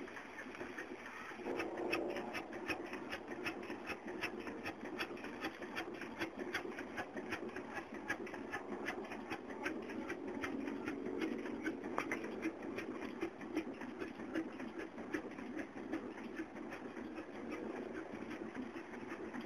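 Erie Engine Works Class D 10 x 12 horizontal stationary steam engine running, its exhaust beating in a steady, rapid rhythm over a continuous hiss of escaping steam. The beat comes in about a second and a half in.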